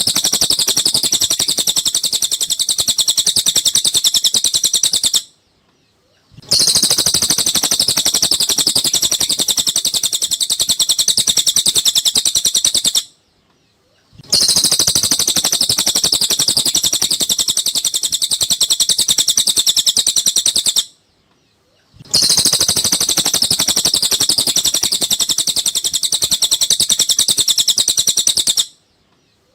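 Looped masteran recording of cililin song: long runs of rapid, high twittering, each lasting about seven seconds and broken by roughly one-second silences about every eight seconds.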